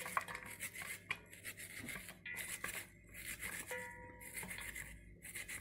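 An onion being sliced with a knife held in the hand over a steel pot: irregular soft cuts and small clicks as pieces drop into the pot.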